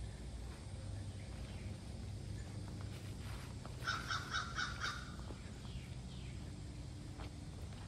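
Outdoor ambience with a steady low rumble, and a bird calling about four seconds in: a quick run of about five short notes.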